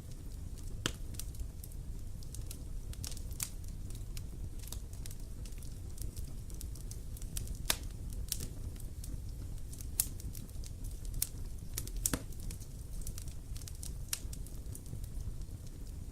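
Wood fire burning, with irregular sharp crackles and pops over a steady low rumble of the flames; a few louder snaps stand out.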